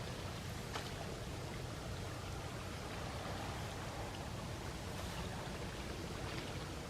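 Small sea waves washing onto the shore: a steady wash of water with a few faint clicks and crackles.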